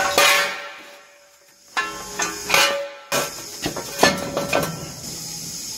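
Steel jack stands being set down and positioned under a truck axle: several metallic clanks, each ringing on briefly, with a steady high hiss underneath.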